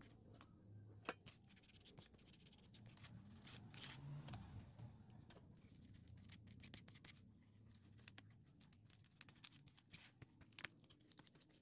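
Very faint brushing and scraping of a small paintbrush spreading glue on a leather collar strap, with a few scattered soft clicks.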